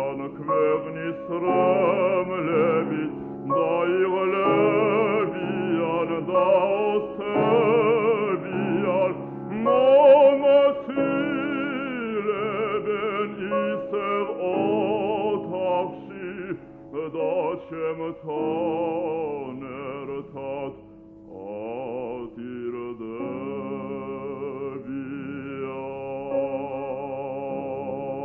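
A man singing a slow song with wide vibrato over instrumental accompaniment, in an old recording that sounds dull, with nothing above the middle treble.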